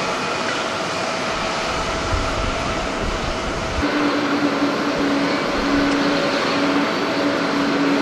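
Jet airliner engine noise. A Japan Airlines Airbus A350 drones steadily with faint whining tones as it climbs out. About four seconds in the sound changes abruptly to a slightly louder jet drone with a low hum that breaks off now and then.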